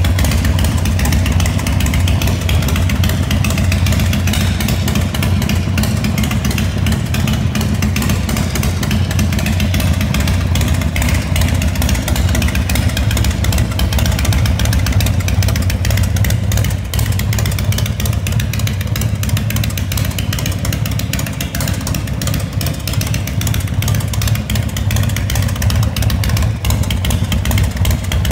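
Big Dog K-9 chopper's S&S V-twin engine idling steadily through its chrome dual exhaust pipes.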